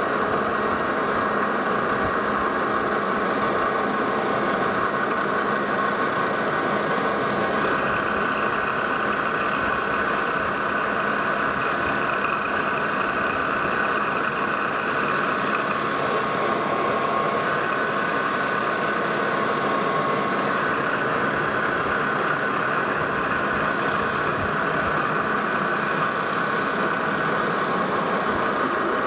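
Metal lathe running steadily while a tailstock twist drill cuts into a spinning metal disc, opening a half-inch pilot hole up to 7/8 inch. A higher whine from the cut joins in for several seconds around the middle.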